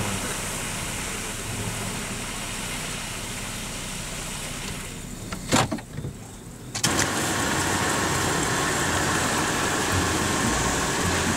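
Jeep Grand Cherokee's engine running as the SUV pushes through muddy water, with one sharp knock about five and a half seconds in. After a short dip, the engine runs steadily and more loudly.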